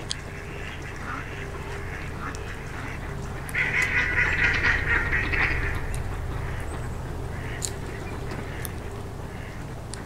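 Ducks quacking on the marsh: fainter calls at first, then a louder run of rapid quacks about three and a half seconds in that lasts about two seconds, over a steady low background rumble.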